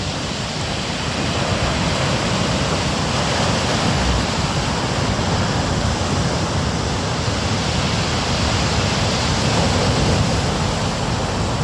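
Waves and surf of a stormy sea: a steady, unbroken rushing noise with no single wave standing out.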